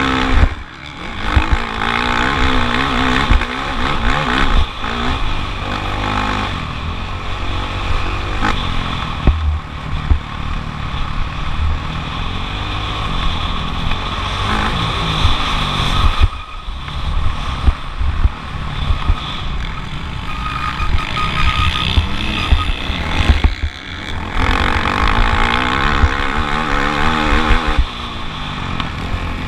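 Motocross bike engine at race pace, revving up and falling back as it goes through the gears, with the throttle briefly shut off three times, and scattered sharp knocks over the top.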